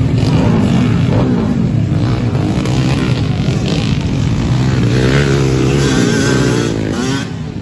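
Several motocross dirt bike engines running at race speed, revving up and down as the riders accelerate along the dirt track. Near the end one engine's pitch climbs and drops in clear sweeps.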